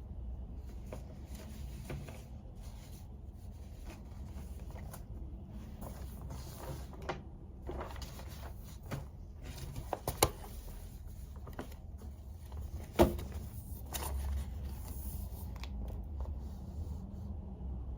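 Quiet desk work: scattered small clicks, knocks and brief scratchy noises from objects being handled at a study desk, with two sharper taps about ten and thirteen seconds in, over a low steady hum.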